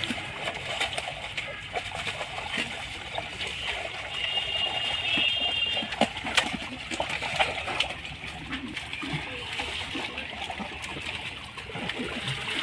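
Water splashing and sloshing in shallow water as a fishing net is gathered by hand, with many small irregular splashes. A high, steady call lasting about two seconds sounds about four seconds in.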